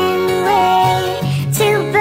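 Pop song sung in high, sped-up chipmunk-style voices, the singer holding long notes over a bass line.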